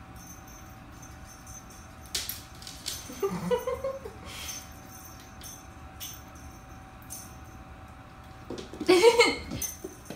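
Kittens playing with a feather wand toy: scattered soft knocks and scuffs over a low room hum, with a short pitched sound about a third of the way in and a brief burst of a person's voice near the end.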